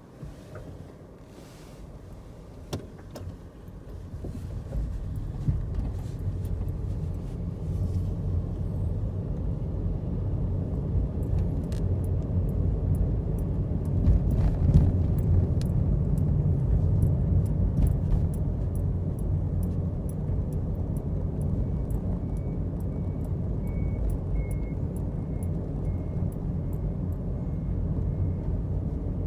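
A car running, with low engine and road rumble that builds over the first few seconds and then holds steady.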